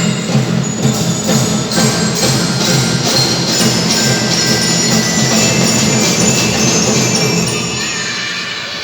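Children's marching drum band playing: drums keep a steady beat under a bright, bell-like melody.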